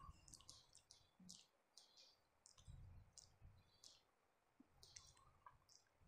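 Faint, short taps and scratches of chalk on a blackboard as a sentence is written, a quick series of separate strokes.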